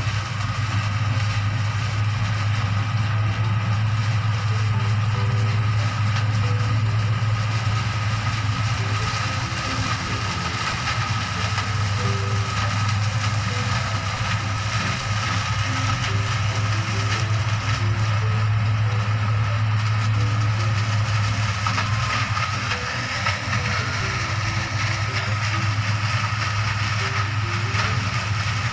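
Background music: a steady low drone with a line of short notes stepping up and down in pitch over it.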